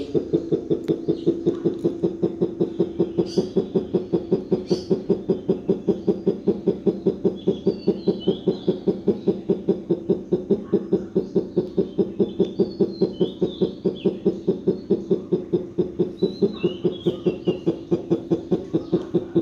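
Barred eagle-owl giving a steady, rapid series of low hoots, about four a second, without a break. It is his greeting call to his bonded keeper, made while showing off his nest.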